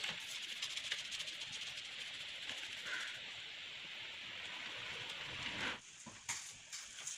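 Wax crayon scribbling back and forth on paper: a steady, scratchy hiss that cuts off suddenly about six seconds in, followed by a few light taps.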